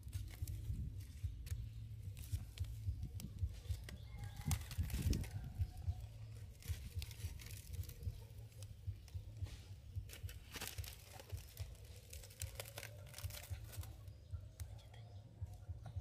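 Aluminium foil crinkling and scraping in irregular crackles as cooked bell pepper halves on it are prodded with tongs and lifted with a knife, over a low steady rumble.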